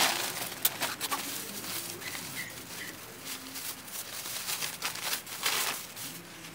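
Plastic tarp rustling and crinkling as it is tugged and handled, in several swishes: one at the start, a couple about a second in and a longer one near the end.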